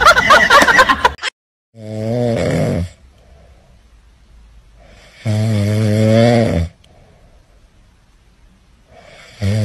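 A loud pitched sound cuts off about a second in. Then a grey cat, fast asleep, snores three times, each snore about a second long and a few seconds apart.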